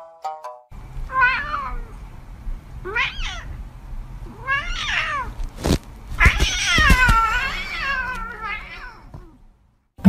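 A domestic cat meowing four times, three short calls and then a long, wavering one. A single knock comes about halfway through.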